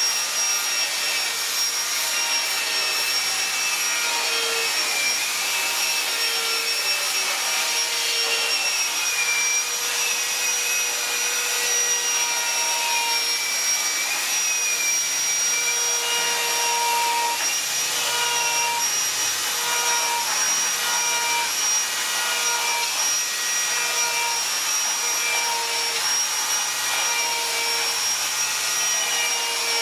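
High-speed rotary carving tool running a burr against wood, grinding out feather detail. It gives a steady high whine over a hiss of abraded wood, with the pitch wavering slightly as the burr bites and eases.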